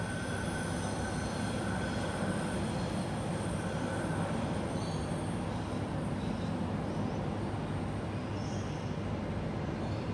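Electric suburban passenger train rolling on rails: a steady rumble and wheel noise, with a thin steady high whine over the first couple of seconds.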